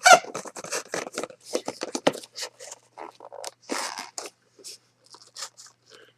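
Cardboard packaging being torn and opened: a run of irregular tearing, crunching and scraping noises, loudest right at the start.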